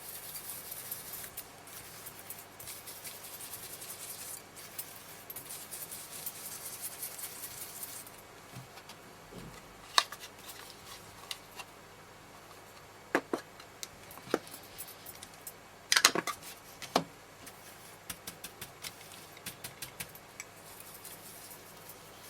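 Ink being rubbed onto card stock: a scratchy rubbing for about the first eight seconds, then scattered light clicks and taps of small craft items being handled, with a few louder sharp clacks near the middle.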